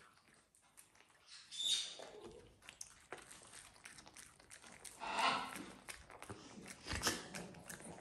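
Short animal calls: a brief high-pitched one about a second and a half in and a longer one about five seconds in. Faint clicks and rustles run in between, and there is a sharp tap near the end.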